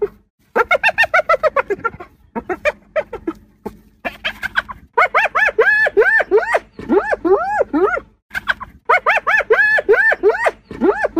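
Spotted hyenas giggling: bouts of rapid, high-pitched notes that each rise and fall, every bout lasting a second or two, with short breaks between bouts.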